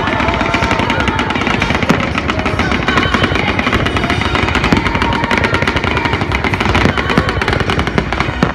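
Aerial fireworks going off in a dense, rapid barrage of bangs and crackles, typical of a finale volley.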